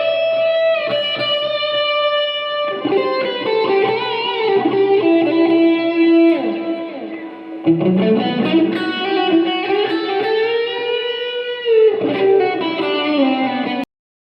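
Electric guitar playing a lead line of long sustained notes with bends and slides, cutting off abruptly near the end.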